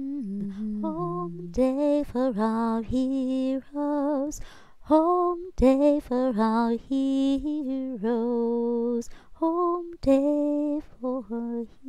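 Slow unaccompanied melody: a single line of held notes, each about half a second, with short breaks between phrases.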